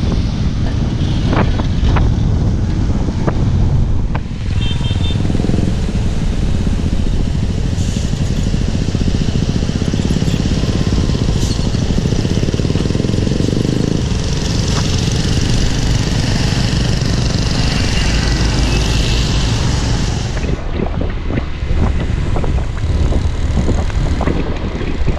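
Ride noise heard from a moving small motorbike: a steady low rumble of engines and tyres on a wet road, changing abruptly a few times.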